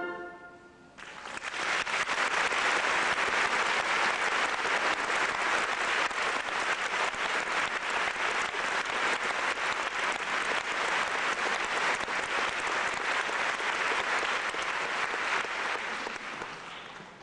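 Theatre audience applauding steadily, starting about a second in as the orchestra's last note dies away, then fading near the end.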